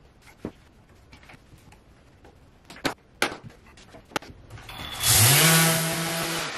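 A few scattered knocks and clicks, then an electric power tool switched on about five seconds in: its motor whine rises quickly to a steady pitch with a loud hiss, runs for about a second and a half, then dies away.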